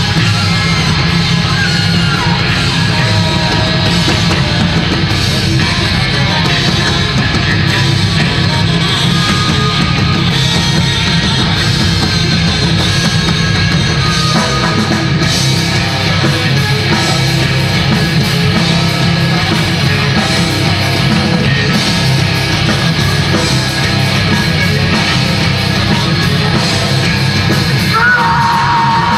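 Metal band playing live: distorted electric guitars, bass and drums, with yelled vocals over them. Near the end a single high note slides up and holds.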